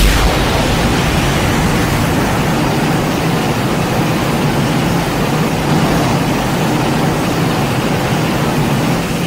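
A steady, loud rushing rumble with a low droning hum underneath, like a large engine running.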